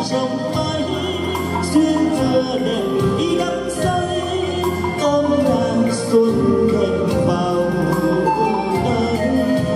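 A man singing a Vietnamese song into a microphone over an amplified karaoke backing track.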